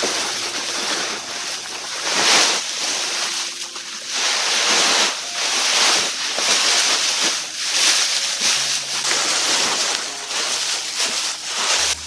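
Dry straw rustling and crackling loudly close up as it is pushed and spread by hand across a corrugated roof, in repeated swells every second or two.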